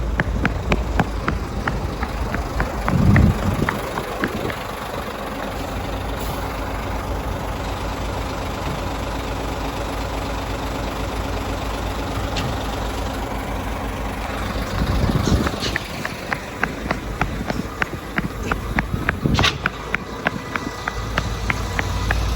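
Heavy diesel truck engine running steadily, with quick rhythmic clicking over it near the start and again toward the end.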